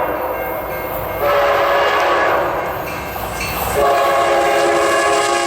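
Train horn sounding a multi-note chord in long blasts: one from about a second in lasting about a second and a half, then a break, then another starting near the end and holding on.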